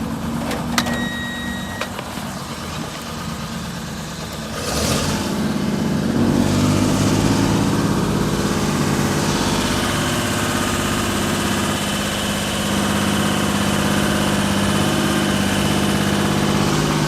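Cherry picker's engine running. A short electronic beep sounds about a second in, and a burst of hiss comes near five seconds. The engine then speeds up and holds steady at the higher pitch.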